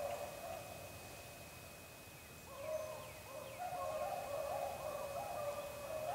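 A pack of beagles baying in the distance as they run a rabbit's track, several voices overlapping. The cries are faint at first and swell from about halfway in.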